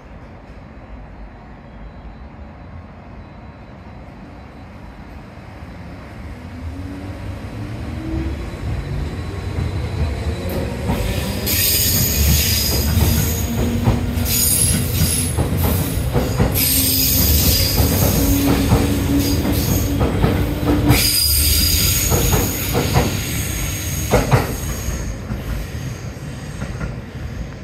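A JR 211 series electric multiple unit pulling out and accelerating past. The traction motors whine, rising in pitch, over a growing rumble. As the cars roll by, high-pitched wheel squeal and the clatter of rail joints come in, loudest about two-thirds of the way through, and fade as the train pulls away near the end.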